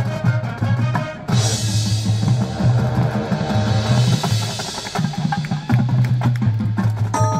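Marching band playing, the drumline to the fore: steady bass drum hits and snare strokes under sustained wind notes.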